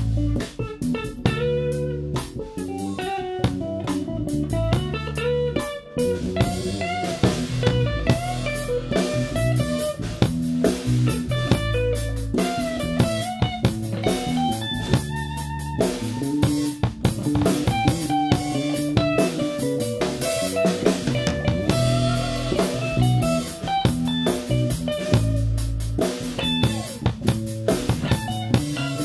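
A live instrumental band: an electric guitar plays a bluesy melodic line over bass guitar and a drum kit with cymbals.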